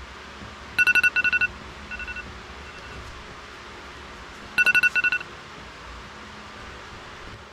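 Electronic phone ringtone: a fast-trilled beep in two short bursts, the pair coming again about four seconds later, with fainter beeps between. A steady hiss runs underneath.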